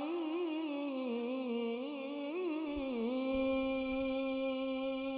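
A man's high voice in a wavering, ornamented melodic run that settles about three seconds in into one long steady held note: the drawn-out close of a Quran recitation.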